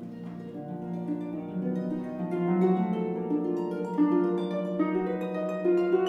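Concert pedal harp playing solo, a steady flow of overlapping plucked notes over a held low bass note, getting louder about two seconds in.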